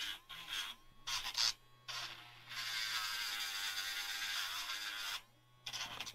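Electric nail grinder running with a steady hum while it is pressed against a dog's nail: several short grinding touches, then one longer pass of about three seconds, and a brief last touch near the end.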